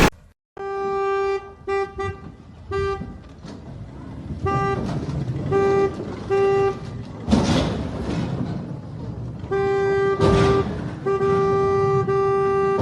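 Vehicle horn honking in a series of short toots, then two long blasts near the end. Two short bursts of noise come between them, one a little past the middle and one during the first long blast.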